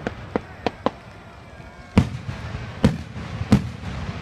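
Daytime firework shell bursting overhead: a rapid string of sharp bangs, four smaller ones in the first second, then three louder reports spaced under a second apart, each trailing off in a low rumble.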